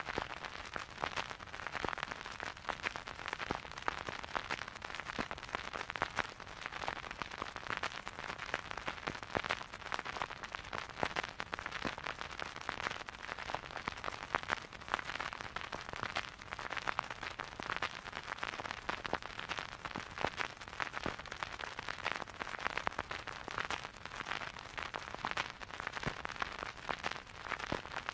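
Vinyl record surface noise picked up by the stylus in the groove: a steady, dense crackle of small clicks and pops over a soft hiss, with no music playing.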